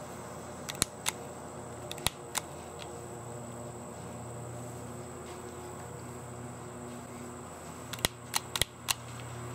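Sharp metallic clicks of the Boberg XR9-S pistol's slide and controls being worked by hand on the jammed gun. There are a few clicks about a second or two in and a quick run of about five near the end, over a steady faint hiss.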